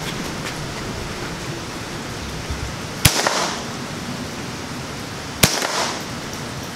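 Two shots from a Ruger 10/22 .22 LR rifle, about two and a half seconds apart, each a sharp crack trailed by a short echo.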